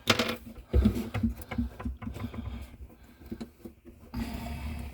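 Hands working the oven's electrical wires and connectors: a sharp click at the start, then irregular small clicks and rustling, with a steadier rustle near the end.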